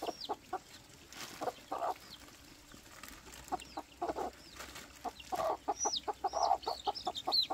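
Chickens clucking in quick runs of short notes, with many thin, high peeps falling in pitch over them, like a hen with her chicks.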